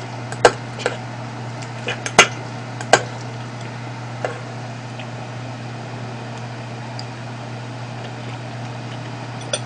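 Metal spoon and chopsticks clinking against a ceramic rice bowl as the rice is mixed, a handful of sharp clinks in the first three seconds and one more about four seconds in, over a steady low hum.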